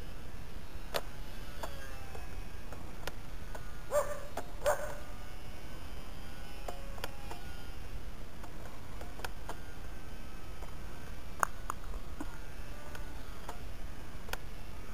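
Short pitched animal calls, two louder ones close together about four seconds in, over a steady low rumble and scattered sharp clicks.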